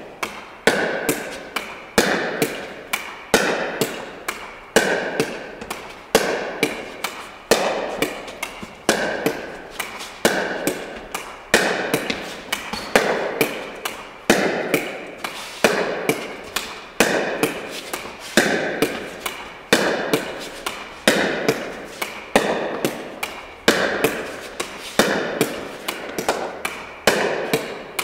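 A pickleball rally against a wall: a Six Zero paddle hitting a plastic pickleball, with sharp knocks in pairs about every second and a half, each ringing in the echo of a large hall.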